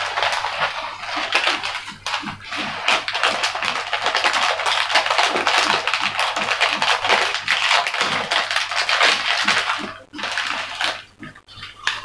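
Rapid clicking, rattling and scraping of hard plastic as a toy remote-control car's battery compartment is fitted and its cover closed by hand. It breaks off briefly twice near the end.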